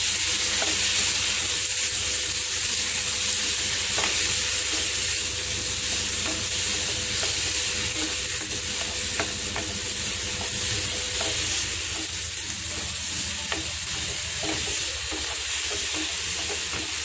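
Hot non-stick pan of flattened rice (aval), banana and coconut sizzling steadily after a splash of milk, as the aval cooks soft in it. A wooden spatula stirs and scrapes through it with scattered light clicks and taps.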